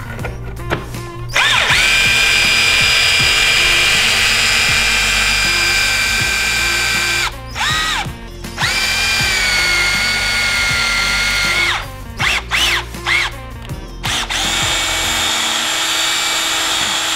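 Cordless drill boring a hole into a plastic snowmobile ski, its motor whining steadily. It stops briefly about seven seconds in, gives a few short trigger bursts around twelve to fourteen seconds, then runs on to the end.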